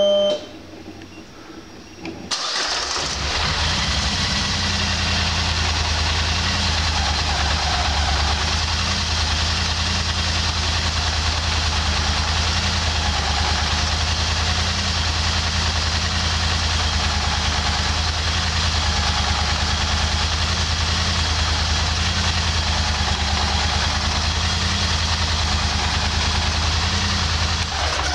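2011 Polaris Sportsman XP 850 ATV's 850 cc twin-cylinder engine starting about two seconds in and idling steadily, at about 1100 rpm, on its first run after the throttle position sensor was reset. It is switched off at the very end.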